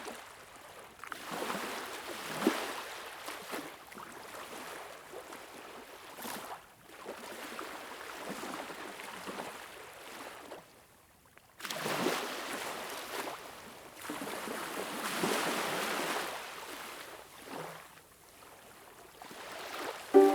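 Surf: waves washing in and drawing back in swells every few seconds, dying away briefly about eleven seconds in before surging again.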